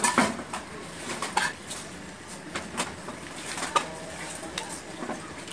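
Scattered clicks and knocks of an angle grinder's plastic housing and parts being handled and turned over by hand during reassembly; the grinder is not running.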